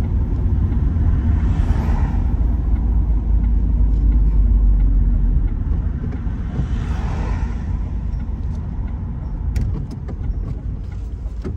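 A manual car driving, heard from inside the cabin: steady low engine and road rumble. A swelling and fading hiss about two seconds in and again about seven seconds in sounds like other vehicles going past, and a few light clicks come near the end.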